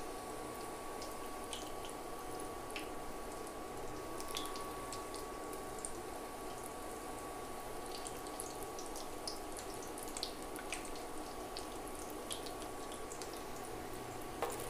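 Battered green-chilli bajjis deep-frying in hot oil in their first fry: a steady bubbling sizzle with scattered small pops and crackles. A faint steady tone runs underneath, and near the end a ladle clinks into the pan.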